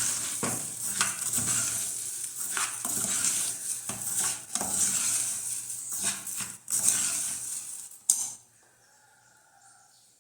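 Rice being stirred in a pot of hot oil: a steady sizzle with a spoon scraping and clinking against the pan. It stops about eight seconds in.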